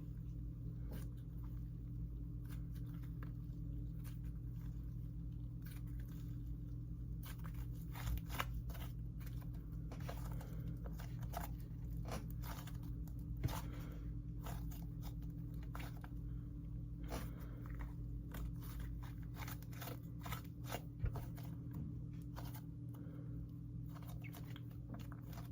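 Butter slime with sprinkles in it being mixed and kneaded by hand, making irregular little crunchy clicks and pops over a steady low hum.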